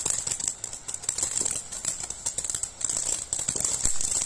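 Ground fountain firework spraying sparks, a dense crackling over a steady hiss.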